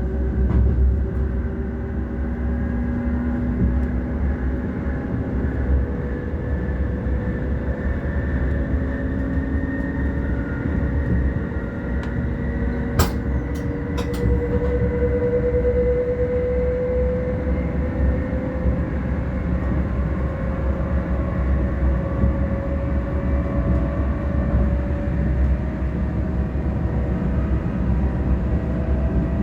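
NS ICM (Koploper) electric train running. A steady low rumble, with several motor whines drifting slowly up and down in pitch. A few sharp clicks come about thirteen to fourteen seconds in.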